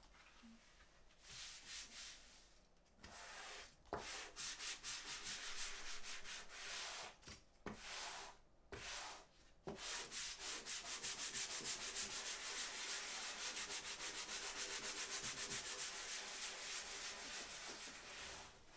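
Leather being sanded by hand with quick back-and-forth strokes of an abrasive, a gritty hiss. It starts as a few short bursts of scrubbing, then runs as steady, rapid strokes from about halfway through until near the end.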